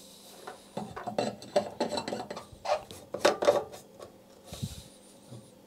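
Contigo 740 ml stainless-steel thermos and its cap being handled: a string of short metal clicks and knocks with some rubbing, then a short hiss near the end.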